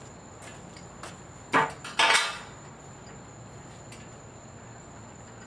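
Two loud knocks of hard objects striking, about half a second apart, the second a short clatter. Behind them is a faint, steady high whine with occasional light ticks.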